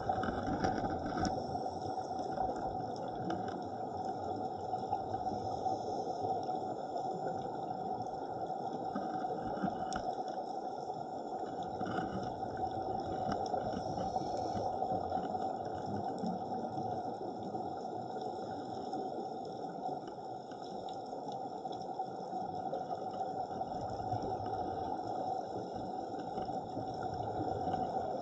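Underwater ambience picked up by a diving camera: a steady, even water noise, with a few faint steady high tones above it.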